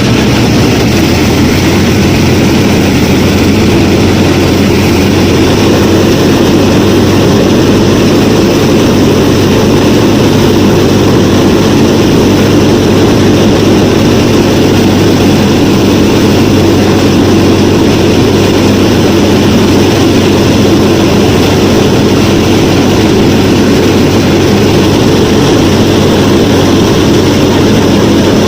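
Miniature DIY tractor-and-thresher machinery running steadily: a loud, even motor drone that holds unchanged throughout.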